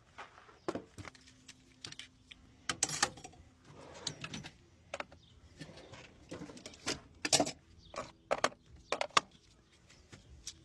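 Irregular sharp metallic clicks and clanks, a dozen or so over several seconds: hand tools and parts being handled during a pickup truck's oil change.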